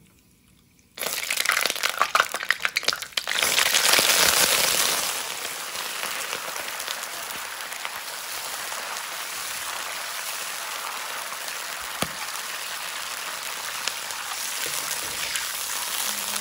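Hot stock poured into a wok of hot oil and caramelised rock sugar: a sudden loud crackling hiss about a second in, spitting for a few seconds, then settling into a steady sizzle as the liquid boils.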